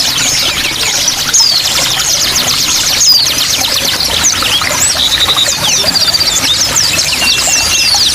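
A dense mix of small songbirds (white-eyes, bar-winged prinias and canaries) chirping and twittering in quick, high notes, with short trills about five and six seconds in, over steady running water.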